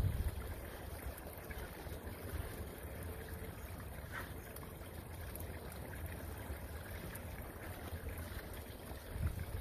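Wind rumbling on the microphone: a steady low rumble with a faint hiss above it.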